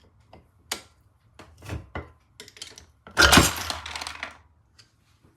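Metal parts of a British Seagull outboard motor being handled on a bench after the top is split from the bottom: a run of light knocks and clinks, then a loud metallic clatter about three seconds in.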